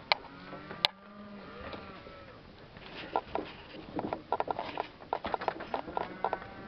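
A herd of cattle crowding through a wooden-post corral: a cow moos in the first couple of seconds, with a sharp knock about a second in. From about three seconds there is a busy run of short knocks and clatters as the herd pushes past.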